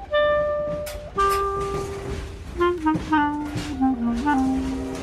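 Clarinet playing a slow melody of held notes that steps downward in pitch.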